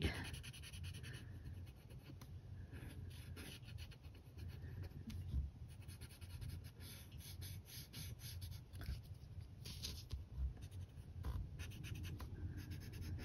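Paper tortillon rubbing over graphite on a paper tile, blending and softening the shading: faint, irregular scratchy strokes.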